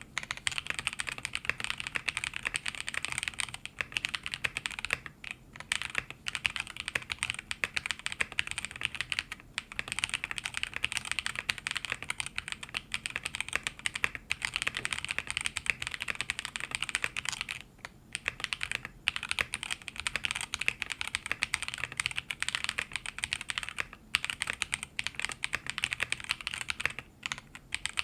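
Continuous fast typing on a mechanical keyboard with stock Zaku linear switches (long-pole extended stems, polycarbonate top, nylon bottom) in a plateless BM60 with PBT OEM keycaps, a snappy clack rather than a thock. The typing breaks off briefly a few times.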